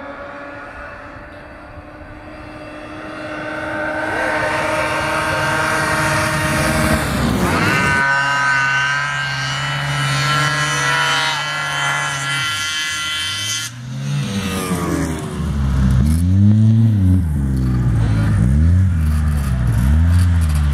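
Snowmobile engines running at high revs as the sleds race up the hill: a steady drone that climbs in a sweep, then holds a high pitch. After a sudden break, a snowmobile engine is revved up and down over and over, about once a second.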